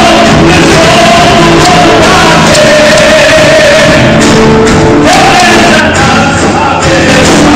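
Live church worship music: voices singing a melody with long held and sliding notes over instruments, recorded very loud.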